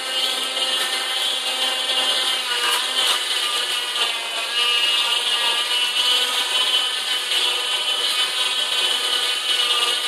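Coway JP03 (Juicepresso) slow juicer running, its vertical auger crushing pineapple chunks as they are fed in: a steady motor hum with scattered crunching and crackling.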